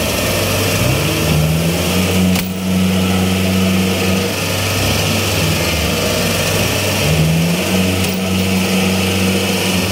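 Rice combine harvester's engine running hard while the machine is stuck in deep mud. It revs up twice, about a second in and again around seven seconds in, each time holding the higher pitch for a few seconds as the bogged machine strains to climb out.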